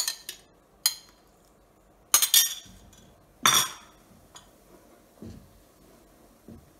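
A metal spoon clinking against a small bowl and a stainless steel pot as lemon juice is spooned into boiled milk to curdle it for paneer: a handful of sharp clinks over the first few seconds, then faint stirring in the pot.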